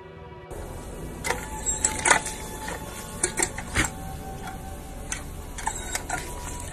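Water spurting and splashing from a paw-pressed pedal water fountain as a German Shepherd steps on it and bites at the jet, giving a steady splashing hiss with many irregular clicks and splats.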